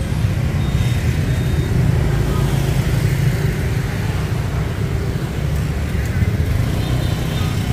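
Street traffic ambience: a steady low rumble of passing motorbikes and other road vehicles.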